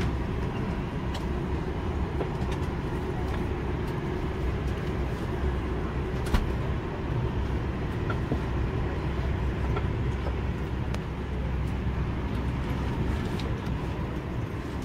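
Steady low rumble of a parked Boeing 737 MAX 9's cabin air system during boarding, with one sharp knock about six seconds in and a few faint clicks.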